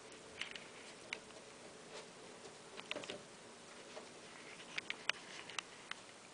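Faint scattered ticks and clicks from a litter of baby rats crawling and jostling over each other in a heap, over a steady low hiss.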